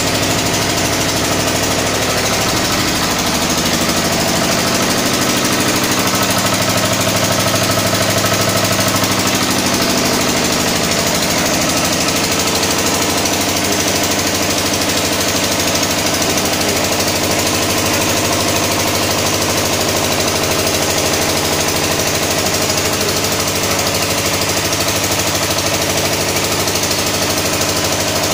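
Four-stroke single-cylinder diesel engine running steadily on its test rig, with a fast, even beat of firing strokes.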